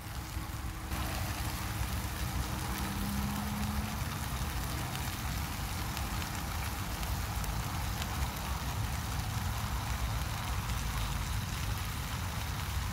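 Chicken sizzling steadily in a hot cast-iron skillet under a heap of cabbage. The sizzle comes up suddenly about a second in, with a low rumble underneath.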